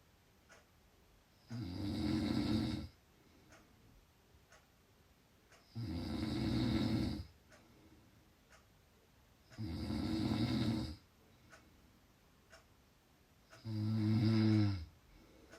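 A person snoring loudly: four long snores, each lasting over a second, about four seconds apart. The last snore has a clearer, steadier pitch.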